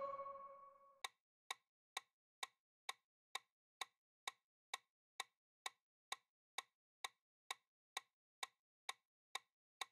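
Quiz countdown sound effect: a clock-like tick, a little over two a second, timing the 10-second answer period. It follows a short chime that rings and dies away within the first second.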